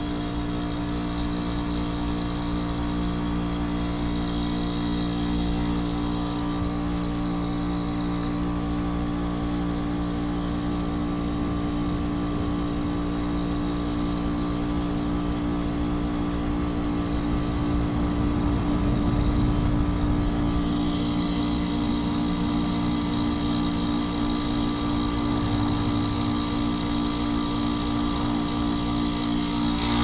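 Outdoor unit of a 2002 Goodman CPLJ 5-ton heat pump running steadily, with its compressor humming and its condenser fan turning.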